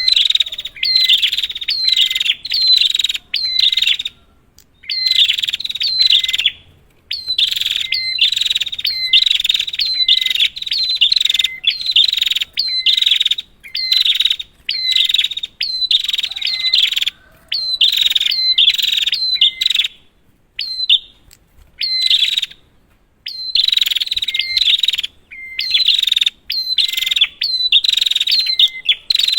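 Prinia (prenjak) chirping in fast runs of sharp, repeated notes. Bouts of a few seconds are broken by short pauses. It is a lure call of the kind played to set other prinias calling.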